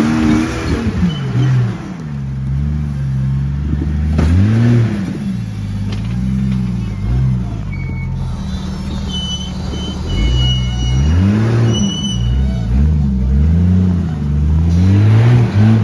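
Lifted Jeep Cherokee XJ's engine revving up and falling back again and again as it crawls over boulders, its pitch rising and dropping several times.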